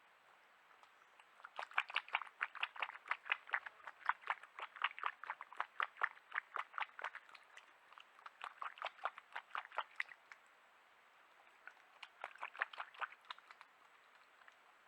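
An animal chewing and crunching food close by: a quick run of crisp crunches, about four or five a second, that stops briefly and then comes again for a second or so near the end.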